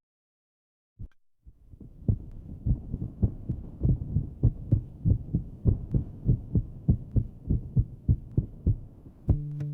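Background music: after about a second of silence, a steady thumping beat at about three beats a second, with sustained chords coming in near the end.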